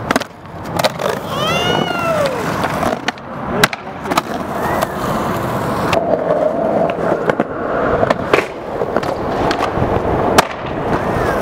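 Skateboard wheels rolling on concrete, broken by sharp clacks of the board's tail popping and the board landing, several times over; the loudest clacks come about three and a half seconds in and near the end.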